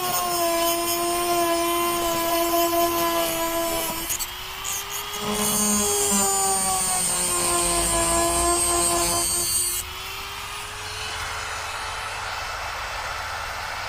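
Dremel rotary tool with an abrasive cutoff disc grinding into a rusted steel screw head: a steady motor whine whose pitch sags and recovers as the disc bites, over a high grinding hiss. About ten seconds in the grinding stops and the tool runs on more quietly with no load, as the screw head comes off.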